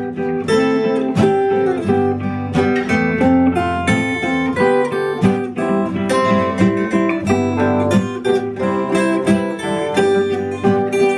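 Acoustic guitar music, instrumental with no singing: plucked and strummed notes played continuously.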